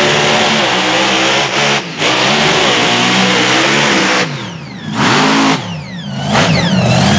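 Mega mud truck engine revving hard through a mud bog on tractor tires, its pitch sweeping up and down with the throttle, easing off twice in the second half before coming back on.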